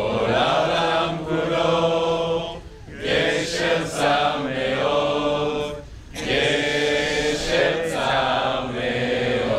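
A large group of people singing a song together, in sustained phrases of about three seconds with short breaks between them.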